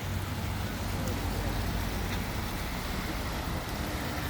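Steady street noise of traffic on a rain-wet road, with rain and a low rumble.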